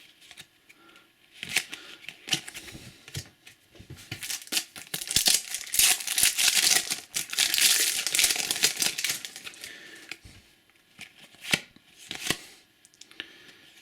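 A trading-card pack wrapper being torn open and crinkled, a dense crackle for several seconds in the middle, with the light clicks and rustles of cards handled before and after.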